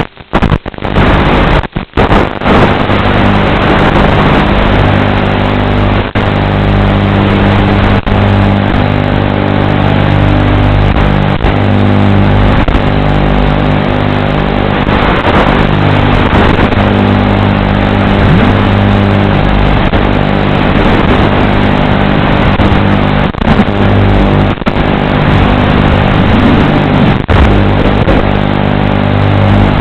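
Steady electrical buzz and hiss on the audio of an analog FPV video-link recording, the noise that an analog FPV receiver records as audio. It cuts out briefly a few times in the first couple of seconds.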